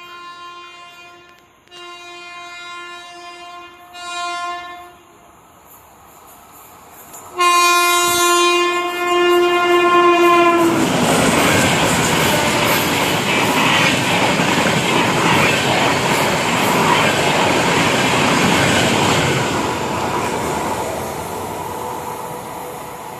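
Coimbatore Shatabdi Express's horn sounding as the train approaches at speed: three shorter blasts, the third louder, then one long, loud blast about seven seconds in. It is followed by the loud rush of the coaches passing close by at speed for about nine seconds, which then fades away.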